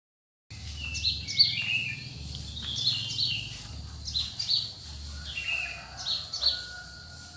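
Small birds chirping outdoors: quick clusters of short, high chirps that slide in pitch, repeated over and over, starting about half a second in, with a faint low rumble underneath.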